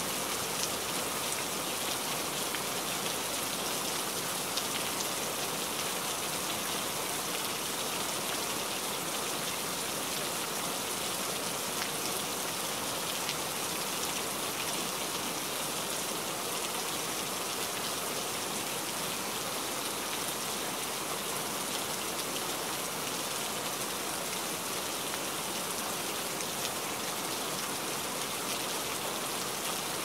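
Steady rain falling on leafy foliage: an even hiss with a fine patter of drops striking leaves, with no let-up or thunder.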